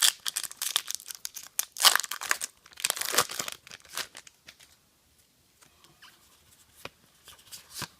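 Foil wrapper of a Pokémon trading card booster pack being torn open and crinkled, in quick crackling bursts over the first four seconds, then only faint rustling.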